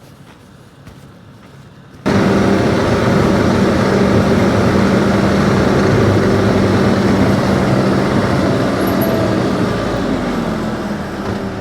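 Bobcat T450 skid steer's diesel engine running steadily at a fairly high idle, coming in abruptly about two seconds in after a quiet start.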